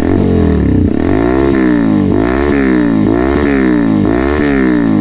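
TVS Apache RTR 200 4V's single-cylinder engine, breathing through an aftermarket full-system exhaust, revved repeatedly towards about 6,000 rpm. The pitch rises and falls four times, about a second apart.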